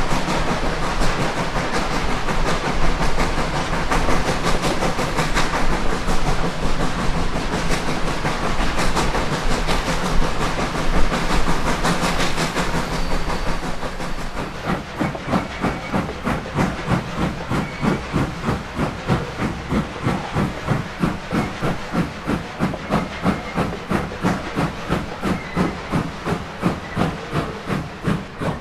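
Reading & Northern steam locomotive 425 working its train: a loud, steady rush of steam and train noise, which about halfway through settles into distinct exhaust chuffs at roughly two a second.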